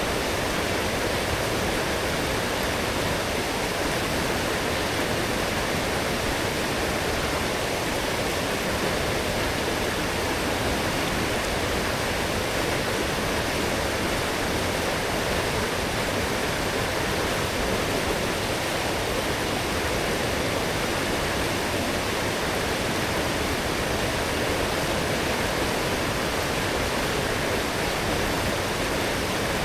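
A strong forest stream running full after heavy rain: a steady, even rush of flowing water.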